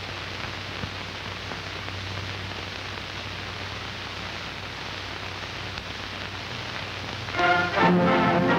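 Steady hiss with a low hum and a couple of faint clicks from an old film soundtrack, then music starting loudly about seven seconds in.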